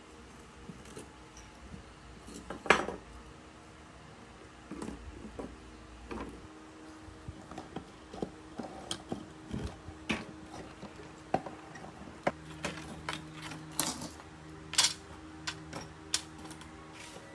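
Rusty metal parts of a graphics card cooler (fan shroud, heatsink fins and bracket) clinking and knocking as they are handled and pulled apart on a wooden table. There is one louder knock a few seconds in, then a run of small clicks and clatters.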